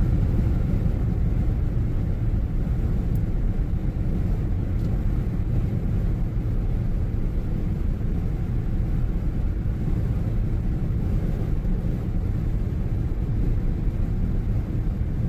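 Car driving at highway speed, heard inside the cabin: a steady low road and engine rumble.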